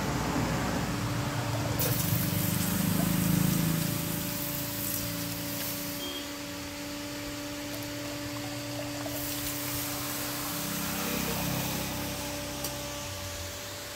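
Red-hot forged steel blade being quenched: water poured from a small cup over the glowing steel and splashing into a pot of water, with a hiss, loudest a few seconds in and again near the end. A steady hum runs underneath.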